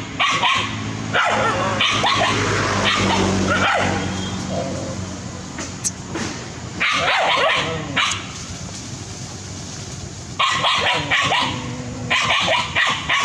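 Several dogs barking and yipping at a macaque in repeated bursts, with a quieter lull in the middle.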